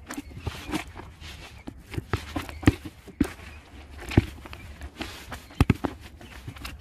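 Plastic bait scoop stirring and digging through a bucket of wet particle bait: a crunchy rustle of grains with irregular sharp knocks of the scoop against the bucket. The loudest knocks come near the middle and in a quick pair near the end.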